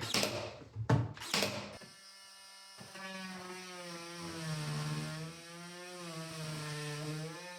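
A couple of sharp clicks, then a power drill's motor running steadily for about five seconds, its pitch dipping and rising a little with the trigger.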